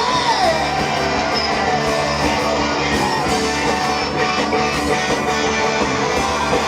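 Live rock band playing between sung lines of a song, the music steady and loud throughout.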